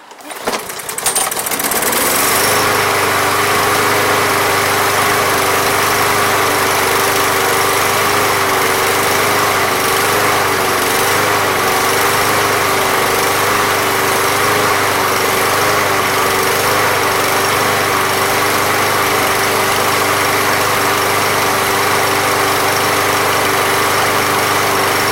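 Briggs & Stratton lawn mower engine catching within the first second and running steadily, its pitch wavering slightly near the middle. It is running again on fresh fuel and Seafoam after a no-start, without the carburetor being cleaned.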